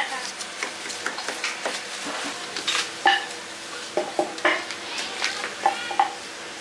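Knife peeling and cutting fruit by hand, with irregular sharp clicks and the clatter of metal bowls and utensils.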